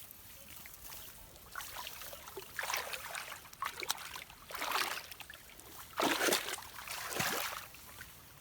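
Shallow muddy water sloshing and splashing as it is stirred, in a run of separate bursts, the loudest about six seconds in.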